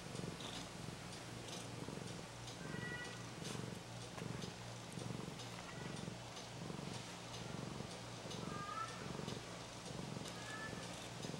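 Mother cat purring steadily while nursing her newborn kittens, the purr swelling and easing with each breath. A few short high squeaks from the newborn kittens come through.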